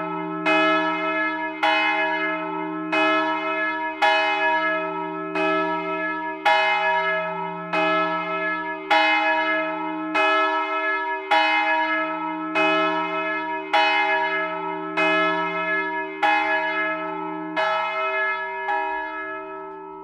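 The 984 kg 'Jézus Szíve' great bell, cast in 1927 by László Szlezák of Budapest and tuned to E, swinging on a cranked yoke with a falling clapper and struck about once every 1.2 seconds, each stroke ringing over a deep hum. Near the end the bell is ringing down and its last stroke is left to die away.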